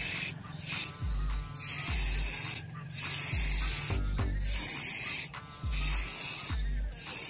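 Aerosol spray-paint can hissing as black paint is sprayed on, in long bursts broken by short pauses about every second or so.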